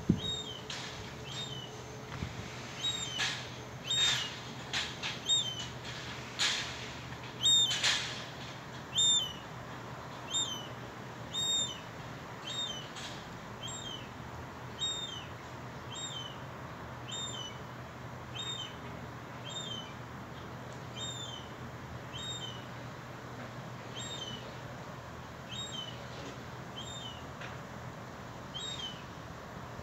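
Juvenile herring gull giving its thin, high begging call over and over, short hooked notes about once a second. A few sharp clicks come in the first eight seconds, under a faint low steady hum.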